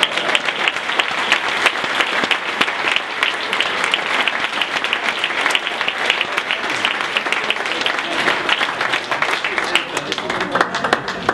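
A roomful of people applauding, dense steady clapping that thins out near the end.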